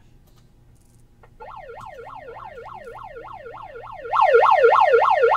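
A siren wailing up and down in pitch, about three sweeps a second. It starts suddenly about a second and a half in and gets much louder about four seconds in.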